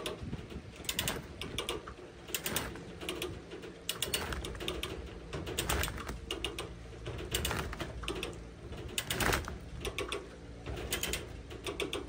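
Trailer winch ratcheting in repeated bursts of quick clicks as it pulls a large, heavy water tank onto the trailer, over a steady hum.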